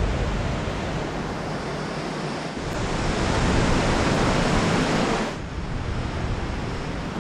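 Steady rushing noise of river water and falls below the trail, mixed with low wind rumble on the microphone; it swells in the middle and drops back about five seconds in.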